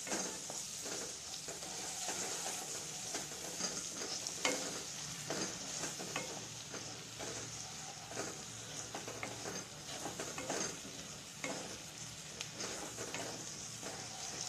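Masala paste of ground green herbs, tomato paste and spice powders sizzling in oil in a kadhai over high heat, as a wooden spatula stirs and scrapes it round the pan in repeated short strokes. This is the bhuno stage, frying the masala until it is cooked.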